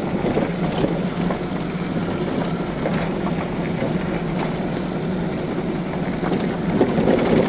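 Car driving along a gravel road: a steady engine hum under the continuous crunch and patter of tyres on loose stones.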